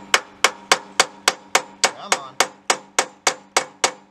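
Hammer striking a stuck, rusted front leaf-spring shackle on a Ford Model A frame, metal on metal, about three and a half even blows a second, each with a short ring, to drive the shackle loose.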